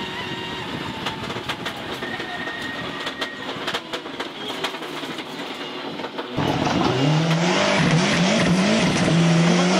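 Ford Escort RS Cosworth rally car at full speed on a stage, its 2.0-litre turbocharged four-cylinder heard from inside the cabin with road noise and rattling. About six seconds in, the sound switches to the car heard from outside, louder, with the engine revving up and dropping back several times through the gears.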